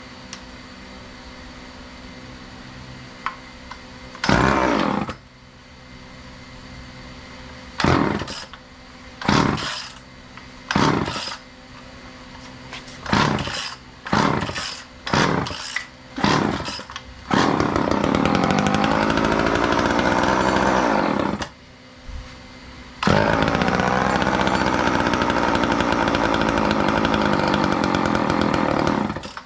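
Old two-stroke chainsaw being pull-started on fuel mixed with a little oil: a string of short bursts as it is pulled over, then it catches and runs, revving up and down, for about four seconds. It dies, restarts a second or so later and runs steadily, then cuts out near the end.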